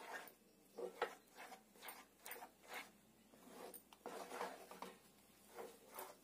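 Wooden spatula stirring and scraping a thick milk-powder kova mixture around a nonstick pan, in faint, irregular strokes about twice a second.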